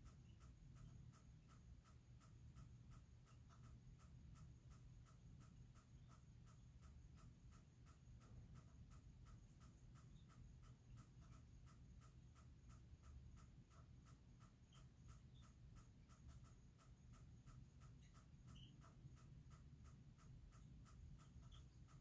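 Near silence with a faint, even chirping about three times a second from a night-calling creature, over a low rumble.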